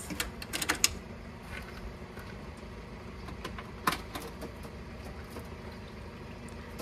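Steady low outdoor rumble, with a few light clicks and taps in the first second and one sharper tap about four seconds in.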